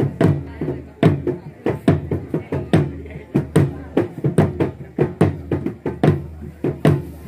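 Traditional drums beaten as accompaniment to a pattu'du' dance: sharp strikes, about two a second in an uneven, lilting rhythm, each with a short low ring.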